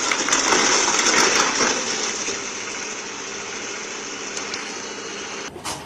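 Mini excavator's engine running as the machine tips over onto its side, a dense noisy mechanical rumble loudest in the first second or two and then settling lower. It cuts off abruptly shortly before the end.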